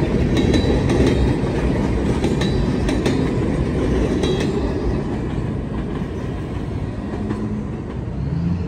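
Freight train boxcars rolling past, steel wheels clacking over the rail joints with a heavy rumble that thins out after about five seconds as the last cars go by. Near the end a road vehicle's engine hum comes in.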